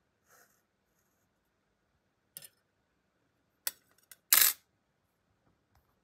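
Small metal objects handled on a tabletop: a few light clicks and taps, then a louder metallic clink a little over four seconds in.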